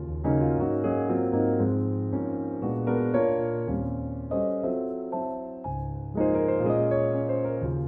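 Background piano music: slow chords struck and left to ring, a new one every second or two.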